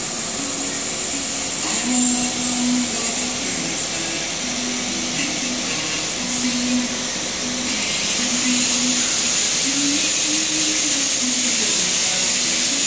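Steady hiss of a running machine, a little louder from about eight seconds in, with a faint hum underneath that wavers in pitch and comes and goes.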